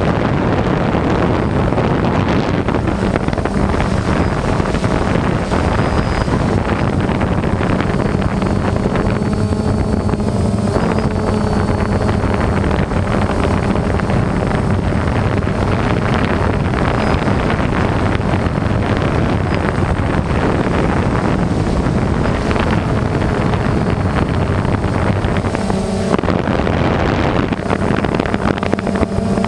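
Electric motors and propellers of an FPV aircraft humming steadily, heard through heavy wind rush on its onboard microphone in flight.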